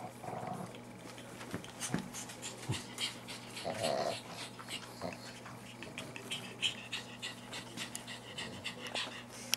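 Three-week-old Griffon Bruxellois puppies playing together: quick puppy panting and snuffling mixed with small irregular clicks and scuffles, and a few brief high squeaks in the second half.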